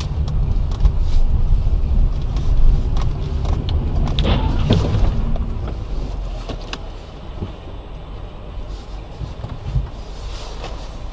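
Car engine and road noise, a steady low rumble, with a few short knocks and a louder burst about four to five seconds in, easing off in the second half.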